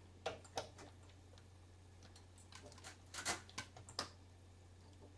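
Scattered light clicks and knocks of plastic plugs and cables being handled while a power plug is pushed into a socket, a few at first and a closer cluster about three seconds in, over a faint steady low hum.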